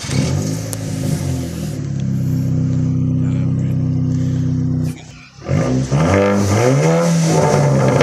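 Audi TT 2.0 TFSI's turbocharged four-cylinder engine running through a full custom catback exhaust with quad tips. It holds a steady drone for about five seconds, drops out briefly, then revs with the pitch rising and falling before settling again.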